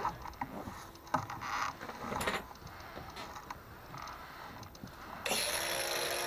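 Light knocks and clatter of tools and parts being handled, then about five seconds in a power tool starts and runs steadily.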